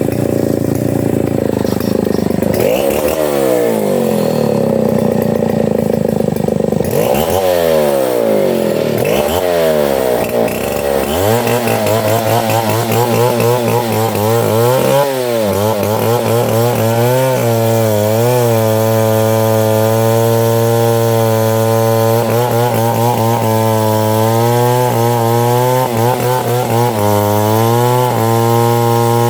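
Octagon 070 two-stroke chainsaw revved up and down several times, then held at full throttle and running steadily with brief dips in engine speed, as when cutting into wood.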